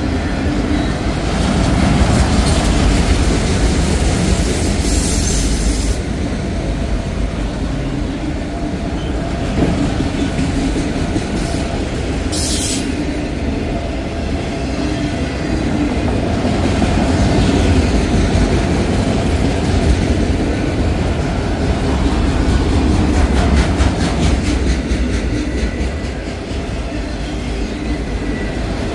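Freight train cars rolling past close by: a steady, loud rumble of steel wheels on rail with clickety-clack over the rail joints. A brief high-pitched wheel noise comes about twelve seconds in.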